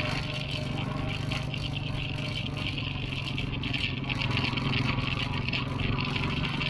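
A vehicle's engine running at a steady pace while driving over a rough dirt track, with a constant low hum and a continuous rattle.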